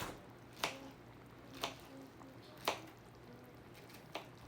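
Fruit being handled and cut for a platter: four sharp taps about a second apart, with soft wet squishing.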